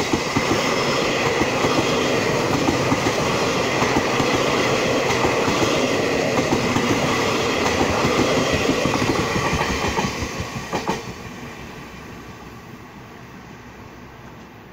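Taiwan Railway EMU800-series electric multiple unit (EMU851+EMU852) passing close by at speed, its wheels clattering in a rapid clickety-clack over the rail joints. It stays loud for about ten seconds, then fades quickly as the last car goes by.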